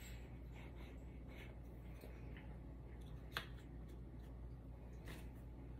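Faint handling of small wooden craft pieces and a glue bottle on a cutting mat: light scattered taps and rubs as a piece is glued and pressed into place, with one sharper click about three and a half seconds in.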